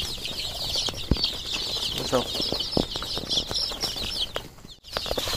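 Dozens of young chicks peeping together in a dense, continuous high-pitched chorus, with a few light taps among them. The sound drops out briefly near the end.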